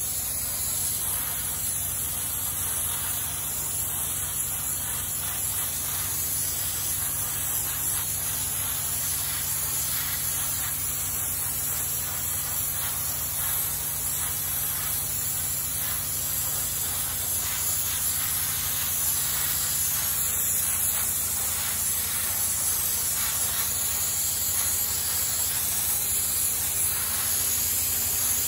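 Electrostatic paint spray gun spraying continuously: a steady hiss of atomised paint and air, with a steady low hum underneath.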